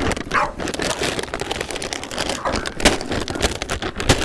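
Plastic dog-food sack crinkling and crackling as it is handled and opened at the top, with many quick clicks and rustles.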